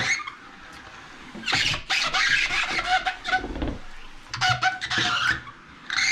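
Window glass being wiped in arcs, squeaking and scraping in several strokes of a second or two each.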